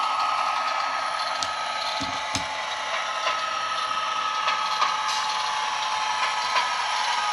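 Diesel engine sound from the ESU DCC sound decoder in a Hornby Class 67 model locomotive, played through small 20x20 mm speakers, so it is thin and without bass: a steady running clatter with a high whine. Light clicks from the model's wheels on the track are scattered through it.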